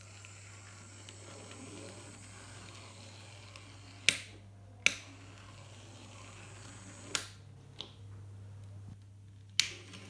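A faint steady hum from a running N gauge model locomotive, a Graham Farish Class 3F Jinty, on its track. Five sharp clicks break through it, the loudest about four, five and nine and a half seconds in.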